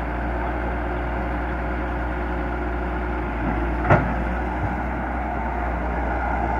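Hyundai Robex 130-W wheeled excavator's diesel engine running steadily while the machine works, with one sharp knock about four seconds in.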